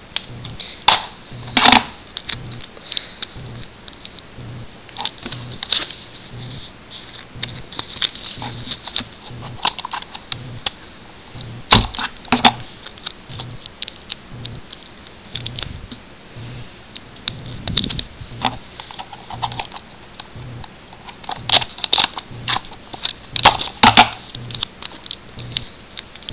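Sticky tape being pulled and torn and pressed onto a printed paper cover: irregular crackling and rustling of tape and paper, with a few sharper cracks.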